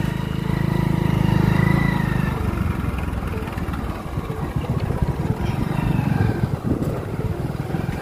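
Motorcycle engine running while riding along, its hum strongest for the first two seconds, with wind rumbling on the microphone.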